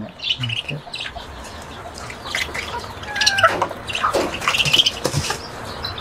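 A flock of budgerigars chirping and squawking in short, scattered calls.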